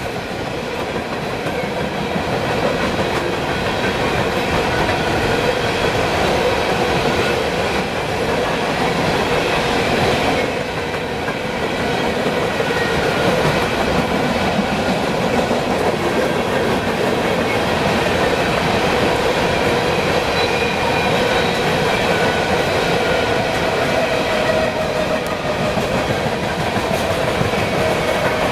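Freight train rolling past, a steady loud noise of wheels running on the rails.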